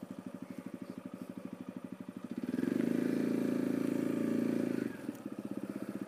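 Motorcycle engine running with a fast, even pulsing. It grows louder and fuller for about two and a half seconds in the middle, then drops back.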